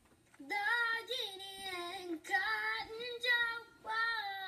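A young girl singing a short show-opening tune alone, in a few long, drawn-out phrases.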